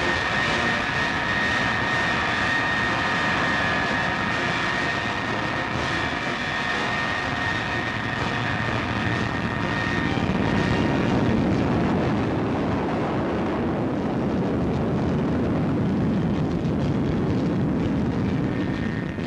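Jet engines of a B-52 Stratofortress bomber running: a steady high whine over a dense rumble. About halfway through, the whine fades and a louder, deeper rumble takes over.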